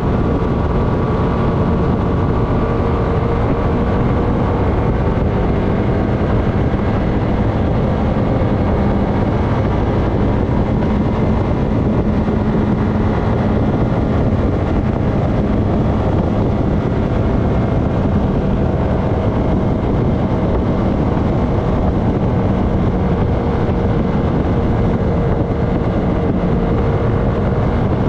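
Honda FourTrax Foreman ATV's single-cylinder engine running steadily at cruising speed on pavement. It carries a constant drone, mixed with wind and tyre rush.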